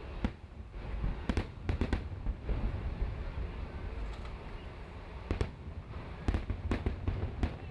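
Aerial fireworks shells bursting overhead: about a dozen sharp bangs at irregular intervals, some in quick clusters, over a continuous low rumble.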